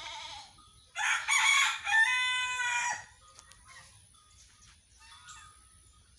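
A rooster crows once, about a second in, for about two seconds: a harsh rasping start, then a held, clearer note that cuts off. Just before it, a goat's wavering bleat trails off.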